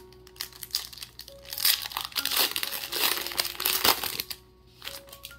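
Foil trading-card booster pack wrapper being torn open and crinkled by hand, a dense crackling that lasts about four seconds and stops near the end. Soft background music with mallet-like notes plays underneath.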